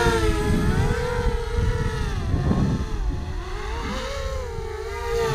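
Eachine V-Tail FPV racing quadcopter in flight, its four EMAX RS2205 2300kv brushless motors and props screaming with a high whine whose pitch wavers up and down as the throttle changes.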